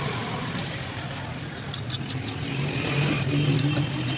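A motor vehicle engine running steadily, growing louder after about three seconds, with a few light clicks about halfway through.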